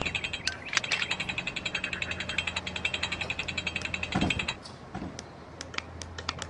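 Rapid, even ratcheting clicks of a gear mechanism, stopping about four and a half seconds in, followed by a few scattered clicks.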